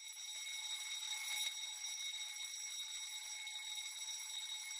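Alarm bell ringing steadily, a rather faint, even ringing with no change in pitch.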